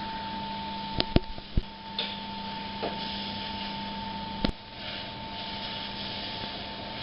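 A tilting ribbon mixer running with a steady machine hum, with a few sharp clicks or knocks about a second in and again near the middle.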